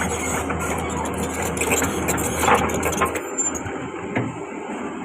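Hydraulic excavator's diesel engine running under work, with irregular knocks and clatter of the digging; about three seconds in, the engine sound drops away abruptly.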